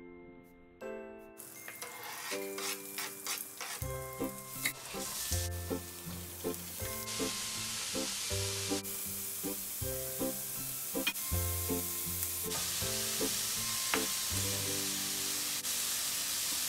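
Diced char siu pork sizzling as it is stir-fried in a frying pan, the sizzle building and growing louder partway through, with background music playing over it.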